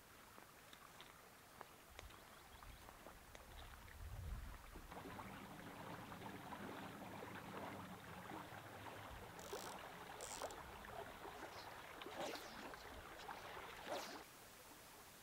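Faint footsteps rustling through dry reeds and grass, then, from about five seconds in, the steady flow of a creek with scattered light clicks and rustles.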